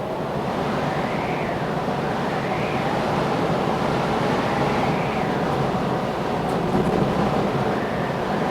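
Storm ambience: a steady, dense roar of rain and wind, with faint rising-and-falling sweeps like gusts.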